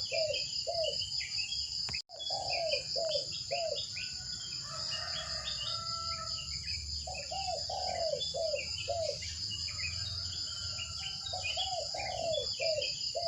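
Outdoor nature ambience: crickets or other insects shrilling steadily, birds chirping, and a group of four or five short call notes repeating every few seconds. The sound cuts out for an instant about two seconds in.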